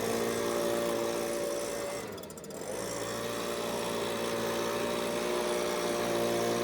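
Small engine of a gas-powered blower running steadily after being warmed up. About two seconds in, its speed and level dip briefly, then pick back up.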